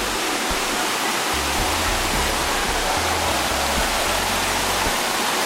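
Waterfall running: a steady, loud rush of falling water close by.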